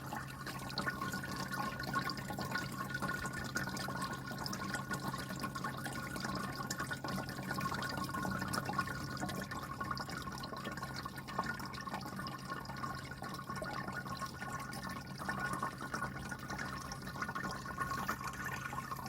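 Electric pet water fountain running: water trickling and splashing steadily, with a low steady hum from its pump underneath.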